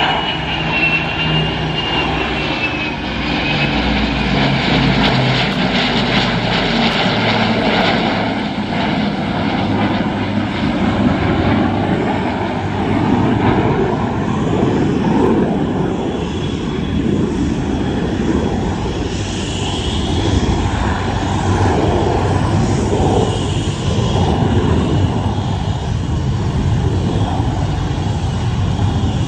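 Formation flypast of an Avro Lancaster flanked by a Panavia Tornado GR4 and an F-35B Lightning II. A loud, steady jet roar mixes with the drone of the Lancaster's four Merlin piston engines. A thin high whine wavers over the first few seconds.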